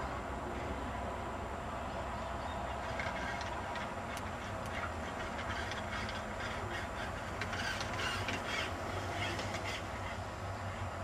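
Radio-controlled EZGO golf cart driving and turning across a grass lawn: a steady low running hum, with irregular clicks and rattles through the middle.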